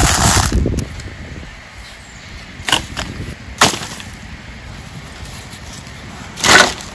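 Dried cowpeas rattle as they fall from a hand into a steel pan, stopping within the first second. Then dry firewood sticks give three sharp cracks spread over the following seconds, the last one a little longer.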